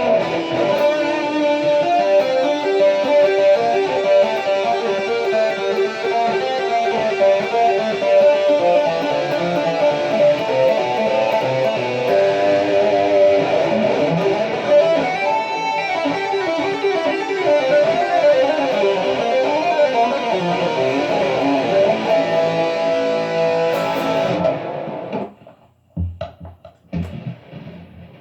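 Jackson electric guitar with DiMarzio Rainmaker and Dreamcatcher pickups, played through a distorted amp channel. It plays a long run of single notes, some of them held with vibrato. The playing stops about 25 seconds in, leaving a few faint clicks.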